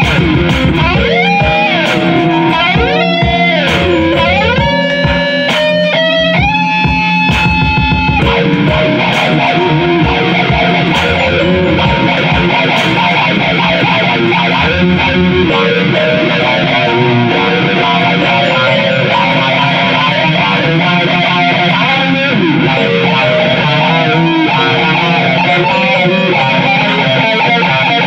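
Electric guitar lead played over a backing beat: long sliding and bending notes over steady percussion hits for about the first eight seconds, then faster, denser playing.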